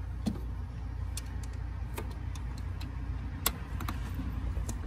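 Ratchet wrench giving scattered, irregular light clicks as it works a spark plug loose in short back-and-forth strokes on a 5.4 L Triton V8, over a steady low rumble.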